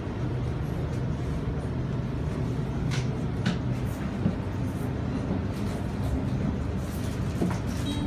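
Cabin interior of a Sydney Trains Waratah A-set electric train running: a steady low rumble with a low motor hum, and a few brief high hisses about three seconds in and again near the end.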